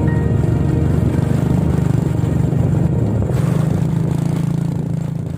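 A small engine running steadily with a rapid low pulse, beginning to fade near the end.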